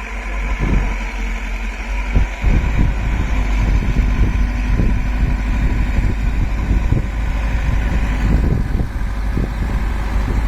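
Case 770 NXe backhoe loader's diesel engine running steadily, with irregular low thumps and rumbles starting about two seconds in.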